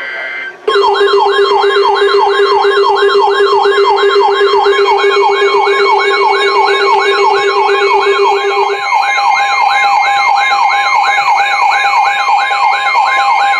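Electronic weather-radio alert siren starting suddenly, a loud tone sweeping upward over and over at about two and a half sweeps a second, over a steady lower tone that stops about nine seconds in. It signals an incoming weather alert.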